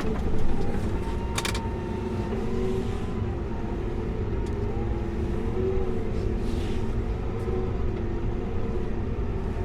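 Tractor engine running steadily under load as the tractor shoves a fallen tree, its pitch wavering slightly. There is a brief sharp knock about a second and a half in.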